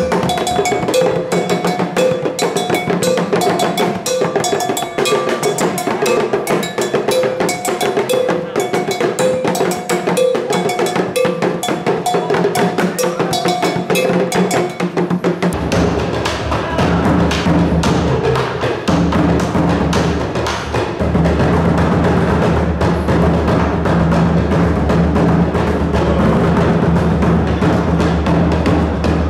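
Live Ghanaian drumming: an hourglass talking drum beaten with a curved stick, a double iron bell struck in a repeating pattern, and a tall drum beaten by hand. About halfway through the sound turns deeper and fuller, with steady low tones under the beats.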